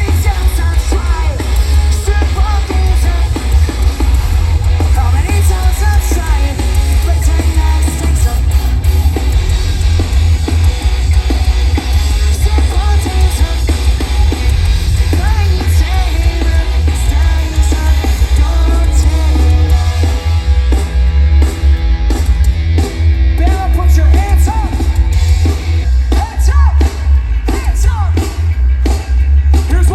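Pop-punk band playing live: distorted electric guitars, bass and drums under a shouted, sung lead vocal, very loud with heavy, booming bass.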